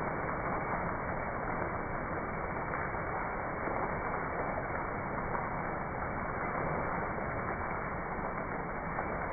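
Steady rain falling on wet concrete, an even hiss with no rhythm or breaks.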